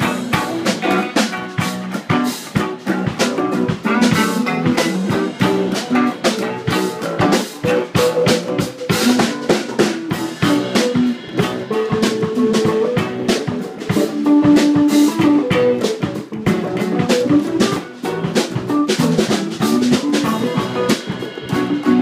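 A rock band jamming live: a drum kit keeping a steady, busy beat with an electric guitar and an electric bass playing over it.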